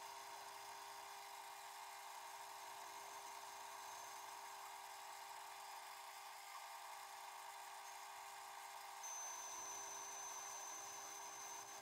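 Small metal lathe running with a steady motor whine while a boring bar cuts the internal 8-degree taper of a steel collet chuck, fed in by hand on the compound slide. A thin high-pitched tone comes in about nine seconds in and holds.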